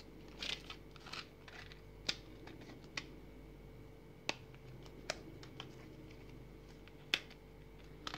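Stiff clear plastic blister pack of a microSD card clicking and crinkling as fingers bend and pry at it. There are irregular sharp clicks, roughly one a second, with brief crinkling in the first second or so.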